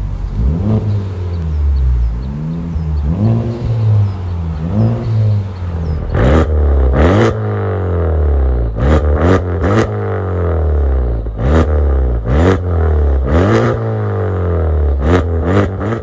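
A Honda Civic Type R FK8's turbocharged 2.0-litre four-cylinder revved repeatedly at standstill through aftermarket exhausts, each rev a rising then falling note. First it sounds through an MXP Comp RS exhaust, then, from about six seconds in, through a Remus Sport exhaust, with short sharp cracks between its revs.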